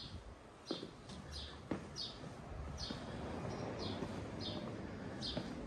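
A small bird chirping over and over, short high chirps coming about once or twice a second, over a low background hum. Two sharp knocks, about a second apart, stand out in the first two seconds.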